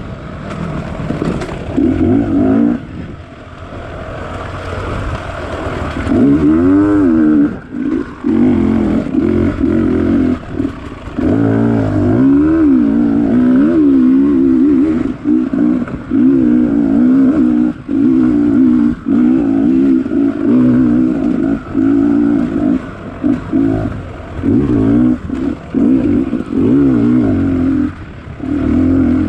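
Off-road motorcycle engine being ridden hard, its pitch rising and falling over and over as the throttle is opened and shut, with frequent brief drops where the throttle is chopped, and a quieter low-revving stretch a few seconds in.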